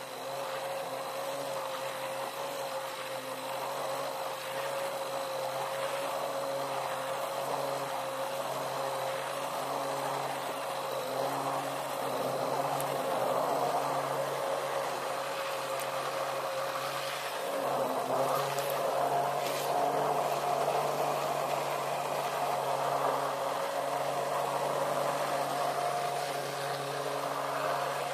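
Hand-held stick blender running steadily, its motor whirring as the blade purées strawberries and sugar in a stainless steel bowl.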